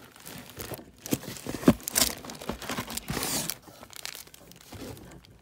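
Packaging crinkling and rustling as hands rummage through a cardboard box of gift items, with irregular sharp crackles that are loudest about two and three seconds in.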